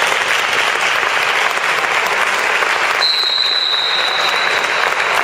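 Audience applauding steadily. About three seconds in, a long, high whistle sounds for nearly two seconds.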